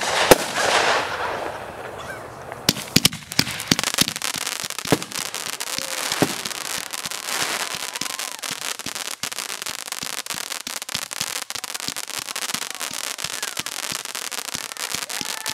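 WF Boom "Gold Dust" consumer firework cake firing. A sharp bang at the start is followed by a hissing rush, then many sharp pops that thicken into a dense, steady crackle of glitter stars.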